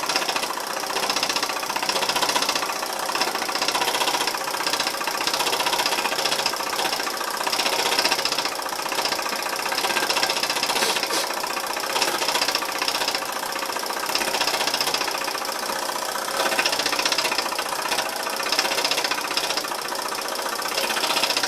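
Stuart ST model steam engine running steadily off its boiler, a fast, even chuff and mechanical clatter with steam hissing, working hard to drive a small steam plant.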